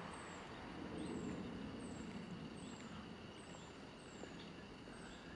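A small bird repeating a high, thin, falling note about once a second over a steady low rumble of outdoor background noise.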